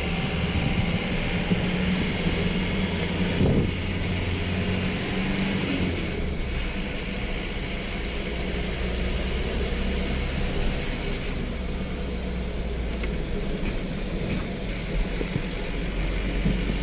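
Vehicle on the road: steady engine hum and road noise, the engine's low pitch shifting a few times as it changes speed.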